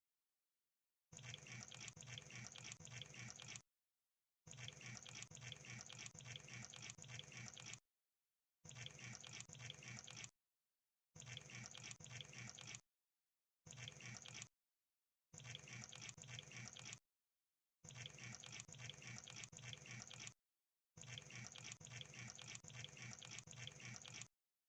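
Crab sound effect: faint, rapid crackling clicks in eight separate bursts of one to three seconds, each cut off by a short silent gap.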